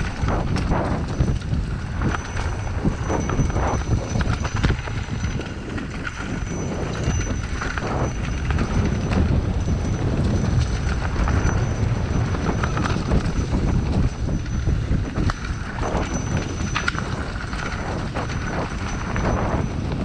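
Mountain bike riding down a rough dirt trail: a steady rumble of the tyres on the ground, with a constant rattle of short knocks and clatters from the bike over the bumps.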